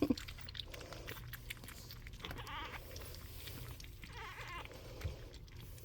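Four-week-old pug puppy grumbling while it eats, with two short high-pitched whining cries, about two and a half and four and a half seconds in.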